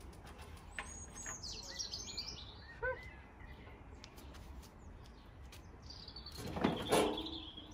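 Small garden birds chirping and singing in short, high phrases, over a low steady outdoor rumble. A brief louder noise comes near the end, around when the gas barbecue's lid is swung open.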